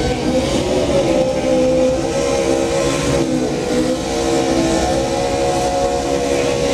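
NASCAR Xfinity #20 Toyota Camry race car doing a burnout: its V8 engine is held at high revs while the rear tyres spin, the pitch wavering and dipping briefly about three seconds in before climbing again.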